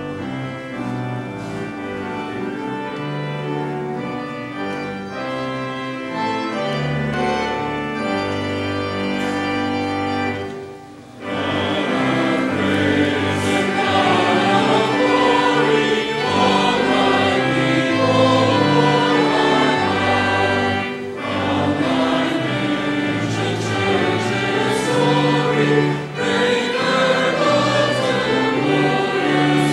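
Church music: an instrumental opening of held chords, then, after a brief break about eleven seconds in, voices singing a sacred piece over the accompaniment.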